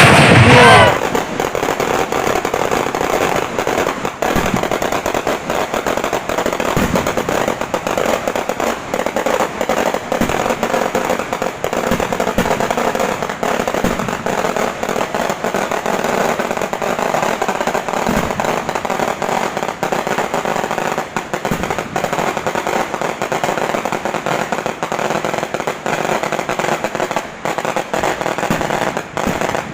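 A long string of firecrackers going off in rapid, unbroken crackling: hundreds of small bangs run together with no pause.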